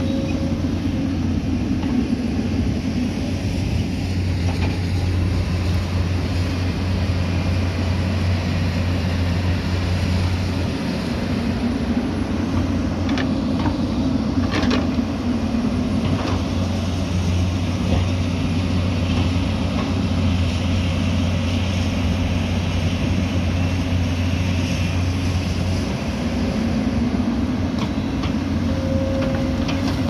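Diesel engines of a JCB backhoe loader and a Kobelco excavator running under load while digging and dumping soil, a steady low drone that eases off briefly about a third of the way in and again near the end. A few sharp knocks come in the middle.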